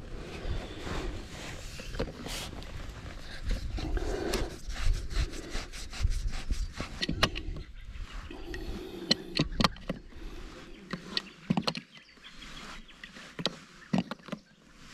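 Plastic poly pipe fitting being worked by hand, rubbing and creaking, then an adjustable wrench scraping and clicking against it as a 1.5" to 1" reducing bush is tightened into the fitting. The sharp clicks come often and irregularly in the second half.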